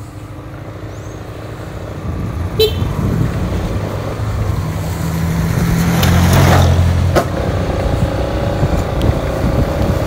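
A motor vehicle's engine running as the vehicle pulls away and gathers speed, getting steadily louder toward a peak about two-thirds of the way through, over road and wind noise. A few sharp clicks sound along the way, one about two and a half seconds in and another about seven seconds in.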